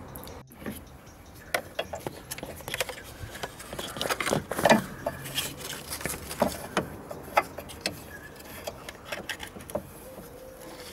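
Irregular clicks, taps and light knocks of hands handling plastic and metal parts: a car's electric brake-booster vacuum pump and its plastic wiring connector being handled and worked loose.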